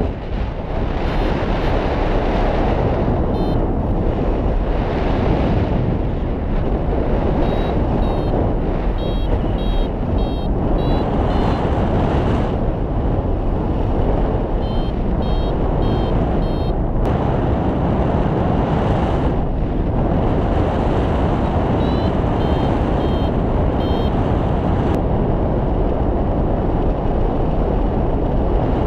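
Strong wind rushing over the microphone of a paraglider in flight. A paragliding variometer beeps rapidly in four bursts of short high tones, signalling that the glider is climbing in lift.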